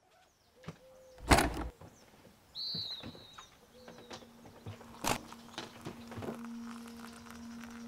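A sudden loud rush of noise lasting under half a second, about a second and a half in, then a single bird chirp, scattered light clicks and knocks, and from about halfway on a steady low hum.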